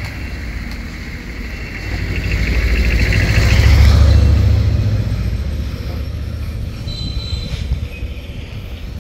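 A motor vehicle passing close by: a low rumble that builds, peaks about four seconds in, then fades away.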